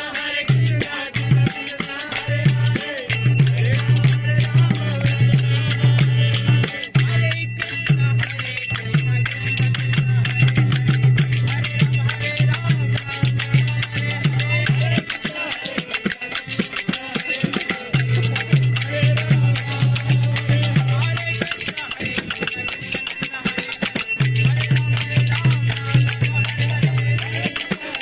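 Background music with fast jingling, rattling percussion over a low sustained drone. The drone drops out for a few seconds about halfway through and again a few seconds later.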